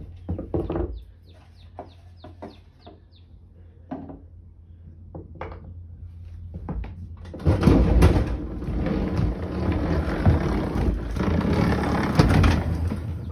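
Honda HRR216 walk-behind lawn mower being rolled across a plywood floor, its plastic wheels rumbling and the deck rattling. The rolling starts about halfway through and grows loud. Before it come a few knocks and a quick run of high chirps.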